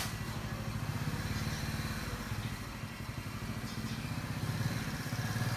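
Small motorcycle engine running steadily at low revs, with an even, rapid beat.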